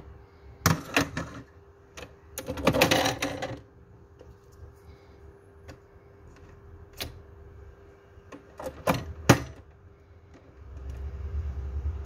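Capsule coffee machine being loaded and started: a mug set down with a clack, a rustle, then a few sharp clacks of the lever on top. Near the end the brewing pump starts with a steady low hum.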